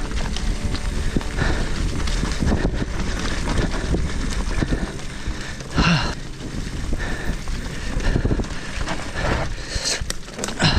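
Mountain bike rolling over a rough, rocky trail: tyres on dirt and rock with the bike rattling and knocking throughout, and wind buffeting the action camera's microphone.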